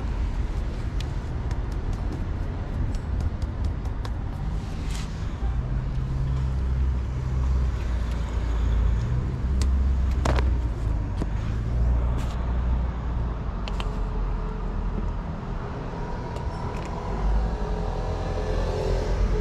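Low rumble of a motor vehicle running close by, swelling and easing over several seconds, with a few sharp clicks.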